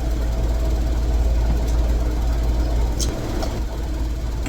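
Wind buffeting the microphone, a steady low rumble, with a single sharp click about three seconds in.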